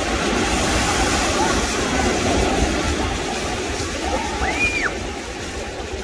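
Small waves breaking and washing in the shallow surf at the water's edge. A short high cry rises and falls once, a little past the middle.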